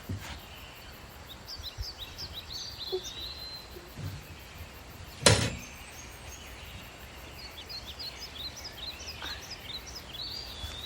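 Small songbirds chirping in two runs of quick, high notes, with one sharp loud thump about five seconds in.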